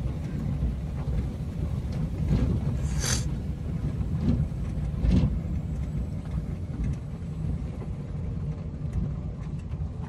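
Car driving on a rough dirt road, heard from inside the cabin: a steady low rumble of tyres and engine, with a few louder knocks and jolts in the first half.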